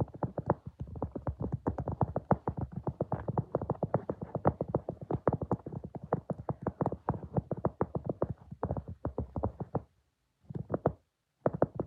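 Rapid, evenly paced tapping or clicking, about seven strikes a second, stopping briefly twice near the end.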